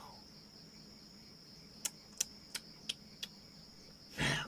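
A cricket chirring steadily in the background, with five light clicks in the middle and a short rush of noise near the end.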